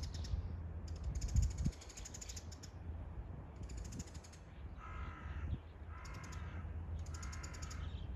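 A crow cawing three times, about a second apart, in the second half. Short bursts of a fast, dry, high-pitched rattle come and go throughout, over a low rumble with a thump early on.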